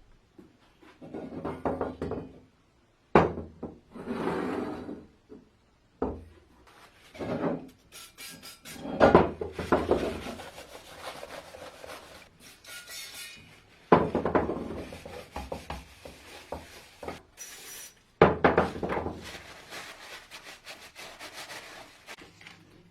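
Irregular rubbing and scraping strokes on the wooden parts of a vintage coffee grinder during restoration, broken by several sharp knocks.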